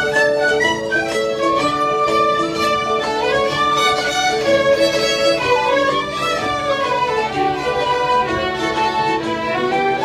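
A group of fiddles playing a tune together, with a guitar accompaniment heard faintly beneath them.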